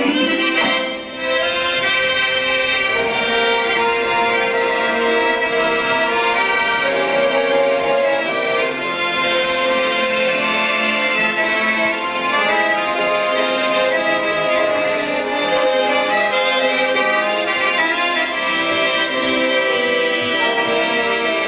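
Georgian kalakuri folk dance music led by accordion, a busy melody of sustained notes playing steadily, with a brief drop about a second in.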